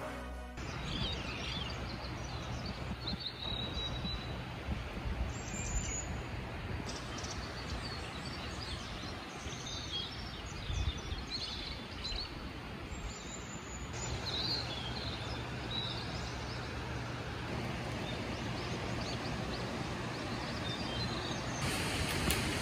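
Outdoor ambience of small birds chirping and whistling, with short calls that drop sharply in pitch, over a steady rushing background noise.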